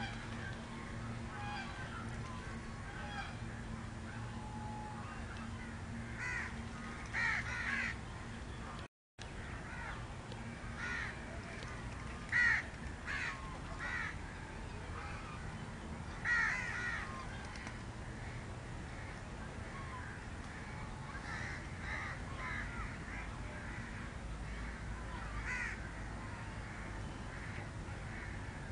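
House crows cawing on and off, in single calls and short runs, the loudest about a quarter of the way in, near halfway and a little after. A steady low hum runs underneath, and the sound drops out for a moment about a third of the way through.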